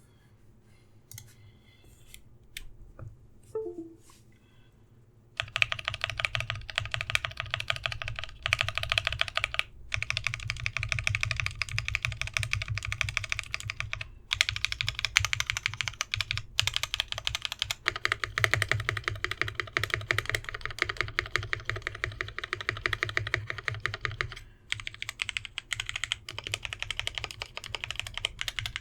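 Fast typing on an Idobao ID80 mechanical keyboard with lubed NovelKeys Cream linear switches and a sorbothane-damped aluminum back plate. For about the first five seconds there are only a few scattered key clicks; then it becomes a steady run of quick keystrokes with a few short pauses.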